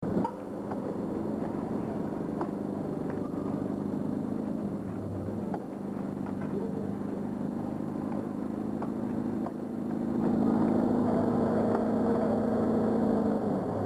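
A vehicle engine running with a steady low hum, heard from inside the vehicle. It grows louder about ten seconds in.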